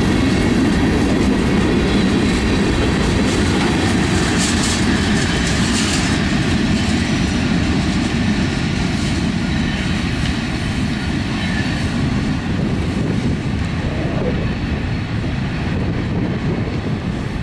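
Freight cars (covered hoppers and tank cars) rolling past on steel wheels: a steady rumble of wheels on rail that eases off gradually near the end as the train moves away.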